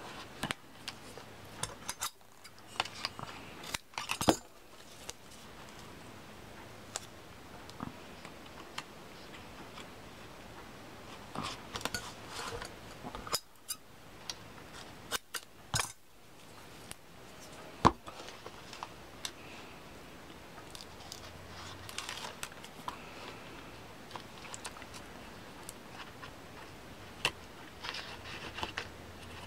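Hands working paper and tape: scattered rustles of tape being laid and pressed down, with sharp snips of scissors cutting the tape strips. The loudest click comes about eighteen seconds in.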